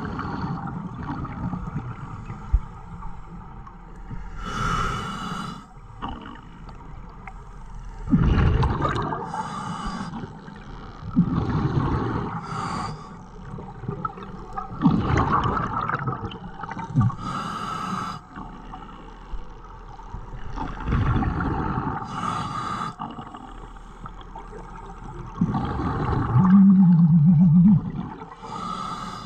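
Scuba diver breathing through a regulator underwater: a short hissing inhale, then a louder gurgling rush of exhaled bubbles, repeating every four to six seconds. A brief low wavering tone sounds during the last exhale, near the end.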